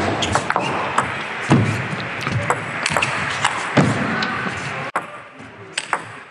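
Celluloid-style table tennis ball being struck back and forth in a rally: quick sharp clicks of ball on rubber bats and table at uneven spacing, over a steady background haze that drops suddenly about five seconds in.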